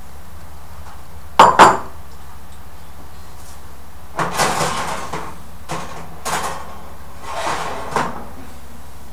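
Cookware being handled at a kitchen stove: two sharp knocks about a second and a half in, then a few seconds of scraping and clattering of pans, over a steady low hum.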